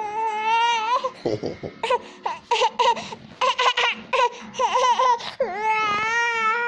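A baby's loud, high-pitched vocalising: a long wavering squeal at the start, short choppy bursts in the middle, and another long squeal near the end.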